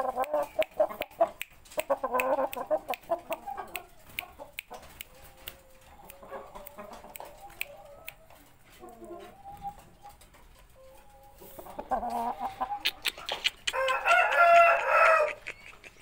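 Chickens clucking, with a rooster crowing loudly near the end. Scattered sharp clicks run underneath.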